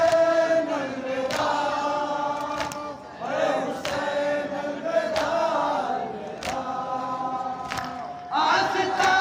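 Group of men chanting a Shia noha lament in unison, in long held phrases that break off and restart twice. Sharp slaps of hands on chests (matam) land about once a second.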